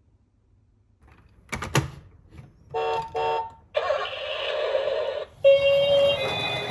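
Toy ambulance minicar's electronic sound unit: a couple of clicks, then two short horn-like beeps, a harsher electronic tone for about a second and a half, and a steady siren note starting near the end.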